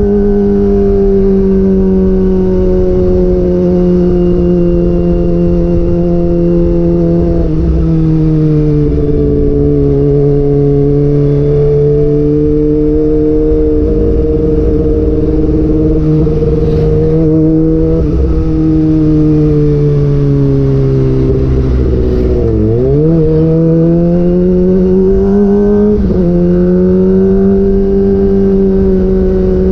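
Kawasaki ZX-25R's 250 cc inline-four running through a DX Generation GPR aftermarket exhaust while riding in traffic, over low wind rush on the camera mic. It holds steady cruising revs and dips as it changes gear a couple of times early on. Later the revs fall away to a sharp dip about 22 seconds in, then climb again with another shift near the end.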